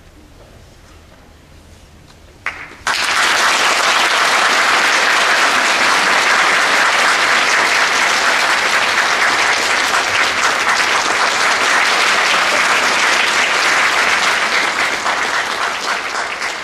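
A couple of seconds of quiet hall as the orchestral music ends, then a concert audience breaks into applause about three seconds in, with a few first claps just before. The applause holds loud and even, easing slightly near the end.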